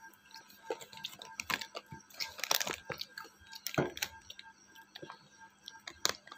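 Potato chips crunching and their plastic packet crinkling, in irregular short snaps and rustles.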